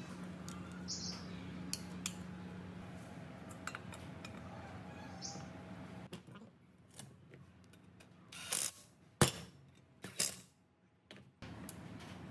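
Metal parts and tools being handled: scattered light metallic clicks and clinks, then a few louder knocks, the loudest about nine seconds in. A low steady hum runs underneath, drops away about six seconds in and comes back near the end.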